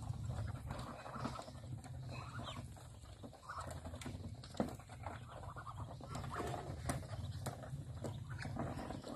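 Muscovy ducks and chickens feeding: many quick pecking clicks and short soft calls, with one louder click about halfway through, over a low steady rumble.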